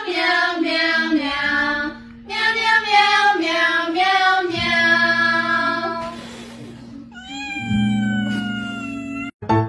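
A song sung in 'meow' syllables over a backing track: runs of short meows, a held note about four and a half seconds in, then one long falling meow near the end.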